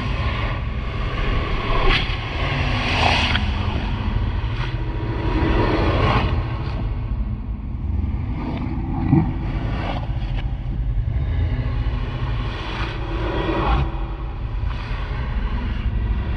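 Dark ambient drone for a haunted-house atmosphere: a continuous deep rumble under faint held tones, with whooshing swells that rise and fade every few seconds.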